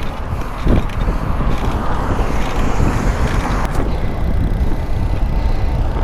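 Wind rushing over the microphone of a moving bicycle rider, with road noise, and a short knock under a second in.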